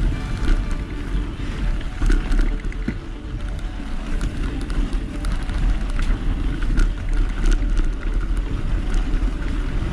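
Mountain bike riding over packed snow on unstudded tyres: wind buffeting the camera microphone as a constant low rumble, with tyre noise and scattered small rattles and knocks from the bike.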